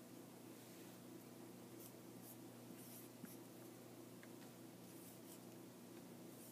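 A dry-erase marker writing on a white board: faint, short scratchy strokes, several of them spread through, over a low steady hum.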